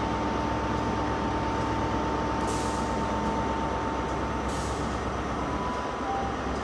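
Diesel passenger train running in to the platform: a steady low engine drone with a whine that fades out a little over halfway through, and two short hisses, about two and a half and four and a half seconds in.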